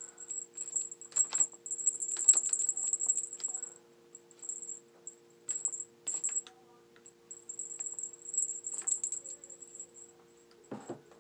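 A rod scraping and clicking as it is jabbed and twisted inside a paintball gun barrel to push out a stuck paintball, in spells of a second or two with short pauses.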